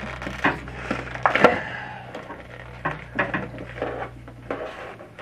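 Stiff clear plastic clamshell packaging crackling and cracking as it is bent and yanked apart by hand, a string of sharp cracks with the loudest about one and a half seconds in.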